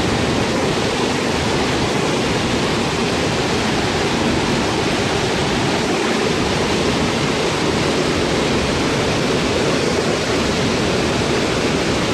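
A mountain torrent of whitewater rushing over boulders: loud and steady.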